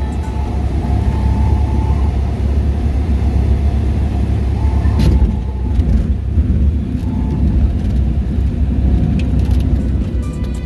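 Cessna 172's engine and propeller running as a loud, steady low drone heard inside the cabin while the plane rolls along the runway, with one sharp click about halfway.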